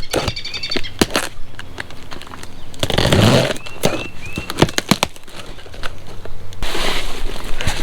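Cardboard parts box and packaging being handled and opened: scraping, rustling and sharp knocks, with a noisier rustle about three seconds in and again near the end. A bird chirps a few times in the middle.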